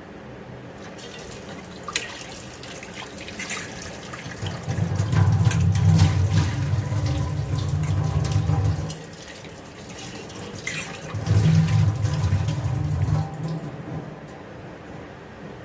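Kitchen tap running into a sink in two spells, the first about four seconds long and the second about two, with scattered light knocks throughout.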